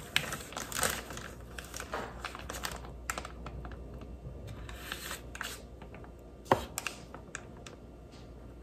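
Metal spoon scraping and clicking against a ceramic bowl while scooping starch powder, with a soft swish of powder at each scoop and irregular small taps, one sharp click about six and a half seconds in.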